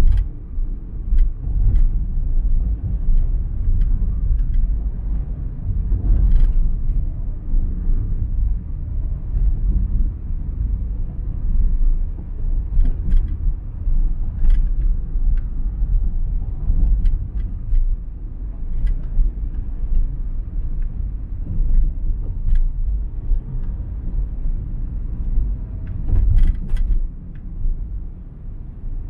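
Steady low road rumble of a moving vehicle heard from inside, with scattered faint ticks over it.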